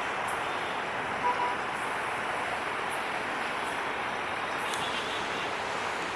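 Steady rolling vehicle noise at an even level, with one short high beep about a second in.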